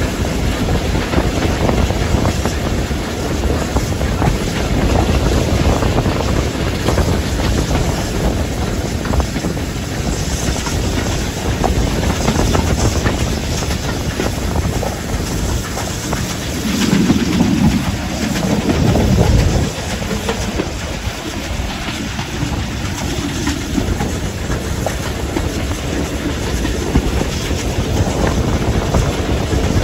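Steam-hauled train behind BR Standard Class 5 4-6-0 'Camelot' running at speed, heard from an open carriage window just behind the tender: wheels clattering over the track with wind buffeting the microphone. A louder low swell builds about 17 seconds in and cuts off at about 19 seconds.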